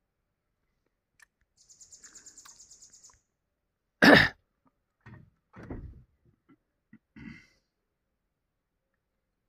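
A person clears their throat loudly about four seconds in, followed by a few softer throat sounds. Before it comes a short, high, rapid trill of about twelve pulses a second.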